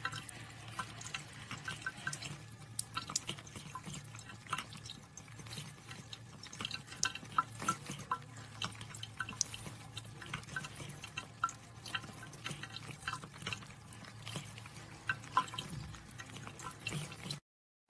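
Aquarium filter running: water trickling and dripping in irregular small drops over a steady low pump hum.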